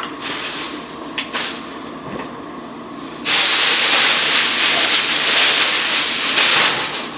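A plastic shopping bag rustling and crinkling loudly as an item is pulled out of it, starting about three seconds in and running on for nearly four seconds, after a few brief rustles of cloth and bag.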